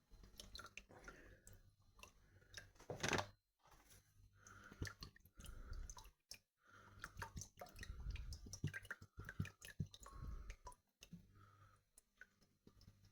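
Faint scattered clicks and handling noises over a low steady hum, with one louder knock about three seconds in.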